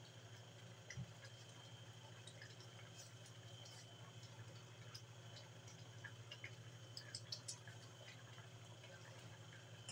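Coconut-milk broth simmering in an aluminium wok: faint, irregular bubbling pops and clicks, a few louder ones near the end, over a steady low hum.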